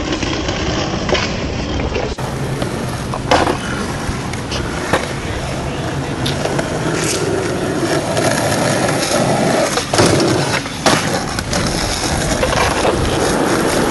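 Skateboard wheels rolling fast over asphalt: a steady rough rolling noise with a few sharp knocks along the way.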